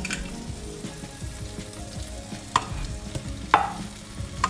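Spiced masala and fish heads sizzling in a pot as boiled cabbage is tipped in from a steel bowl, with three sharp knocks against the pot in the second half.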